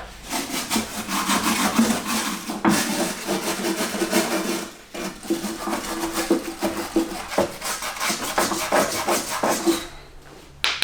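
Rapid back-and-forth scraping and scrubbing strokes, hand cleaning mud and grime off the car's wheel-arch bodywork. The strokes break off briefly about five seconds in and stop near the end.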